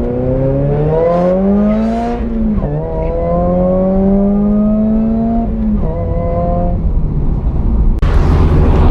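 Car engine accelerating hard through the gears. Its pitch climbs steadily and drops sharply at each upshift, twice. Near the end a louder, rougher rush of noise takes over.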